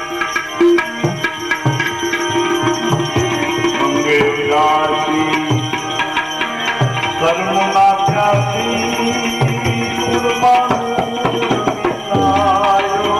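Devotional bhajan music: a tabla keeping a steady rhythm of low drum strokes under held melodic notes.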